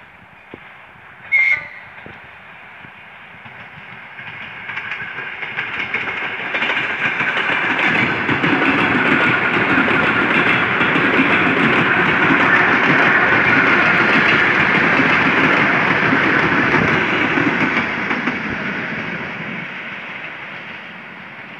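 ER2T electric multiple unit passing on the track: the noise of its wheels on the rails swells as it approaches, stays loud for several seconds as the cars go by, then fades away. A brief sharp sound stands out about a second and a half in.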